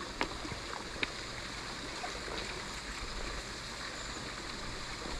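River water running steadily, with two faint clicks in the first second.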